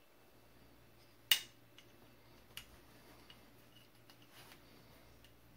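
A sharp metallic click about a second in, then a few fainter clicks and ticks: the hammer, hammer pin and tool being handled while the hammer is held lined up in an AR-15 lower receiver.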